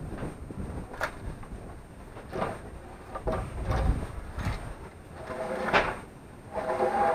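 Wood scraping and sliding by hand in short, irregular strokes, a few of them squeaky, with the louder ones near the end.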